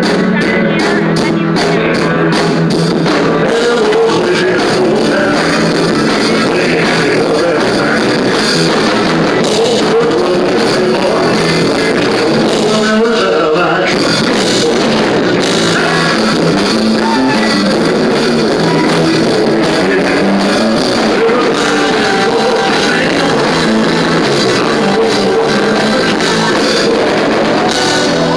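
Live rock band playing loudly through a PA: electric guitar and drum kit, with a male singer on a microphone.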